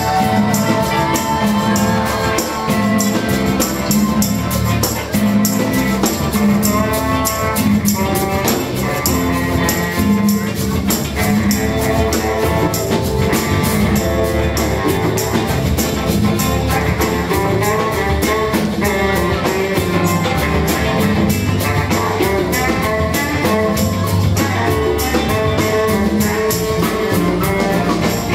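Live band playing with a horn section and drum kit, a steady cymbal beat running throughout; a baritone saxophone plays among the horns.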